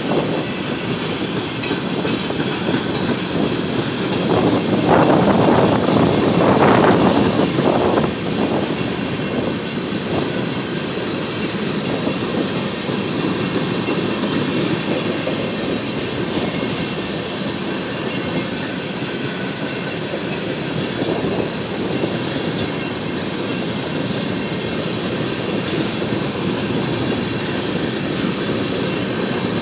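Empty sand hopper cars of a freight train rolling past slowly, their wheels clacking over the rail joints, with a louder stretch about five seconds in.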